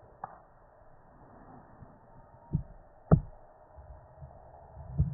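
A few dull, low thumps and knocks, the sharpest about three seconds in, from a handheld phone being moved and its microphone bumped.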